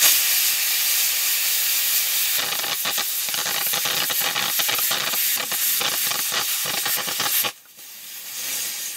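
Pressure cooker letting off steam through its weighted whistle valve, the sign that it has come up to pressure. A loud hiss turns into a fast sputtering after about two seconds, then cuts off suddenly near the end, leaving a faint hiss.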